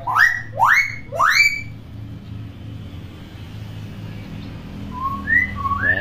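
Hill myna whistling: three loud rising whistles in quick succession, then a few short, softer whistle notes near the end.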